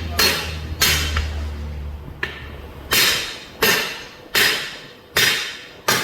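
A heavy hammer striking a steel split-rim truck wheel, about eight blows a little under a second apart, each ringing briefly: driving the rim's ring into its seat.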